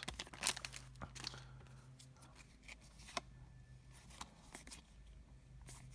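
Faint rustling and scattered light clicks of Pokémon trading cards being handled and slid through the hands, with one sharper click about halfway through.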